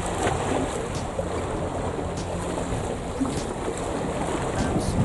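Wind buffeting the microphone over small sea waves washing against shoreline rocks, a steady rushing noise with a few faint ticks.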